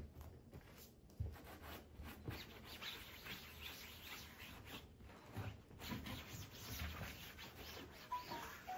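Cloth wiping the fabric cover of a sofa base: faint, repeated scrubbing strokes, with a sharp knock right at the start and a couple of short high chirps near the end.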